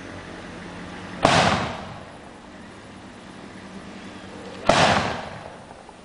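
Kerosene-fuelled bamboo cannon firing twice, about three and a half seconds apart: each shot is a sharp boom that dies away over about half a second.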